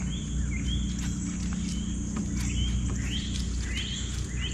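A bird calling with a series of short rising chirps, more often in the second half, over a steady high insect drone and a low steady hum.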